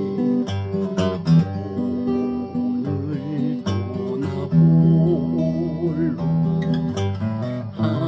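Steel-string acoustic guitar playing an instrumental passage, picked and strummed, with sharp strummed accents now and then.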